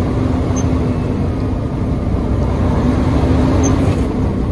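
Engine and road noise of a large manual-transmission truck heard from inside its cab while driving: a steady low rumble with a faint hum that fades in and out.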